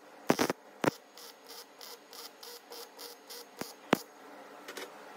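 MIG welder laying short tack welds on steel: a few brief, sharp crackling pops as the arc strikes, the loudest near the start and about four seconds in. Between them a faint chirping repeats evenly, about four times a second.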